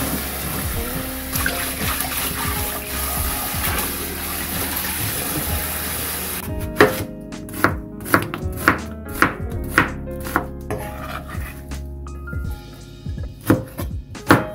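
Tap water running onto blanched radish greens in a stainless steel sink, stopping about six and a half seconds in. Then a kitchen knife cuts through onion and red chilies on a cutting board, about two cuts a second, with a short lull before the last few cuts. Background music plays throughout.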